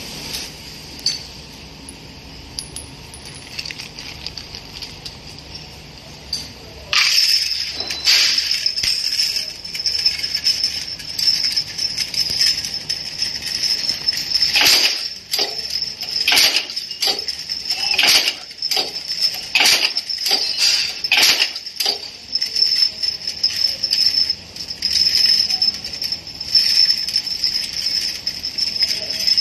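Steady metallic jingling and rattling of rivets in an automatic riveting machine's vibratory feeder, louder from about seven seconds in. Between about 15 and 22 seconds in come about ten sharp metallic clacks.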